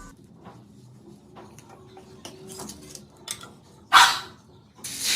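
Light clicks and knocks of kitchen handling, then one short, sharp sound about four seconds in. Near the end, loud steady sizzling starts as the neer dosa batter hits the hot pan.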